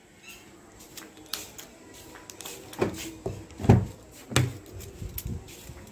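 Scattered clicks and knocks of a car's driver's door being reached and opened, its handle and latch clicking; the loudest is a dull thump a little past the middle.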